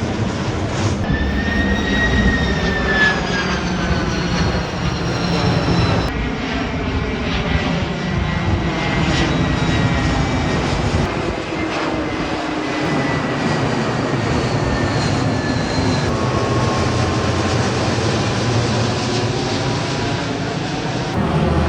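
Jet airliner passing close by with a loud, steady rush of engine noise, its high engine whine sliding slowly down in pitch as it goes past.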